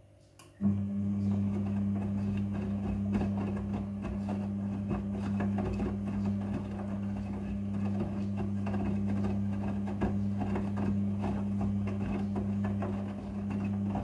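Midea front-loading washing machine's drum motor starting up about half a second in and turning with a steady low hum, wet towels and water sloshing and tumbling inside the drum.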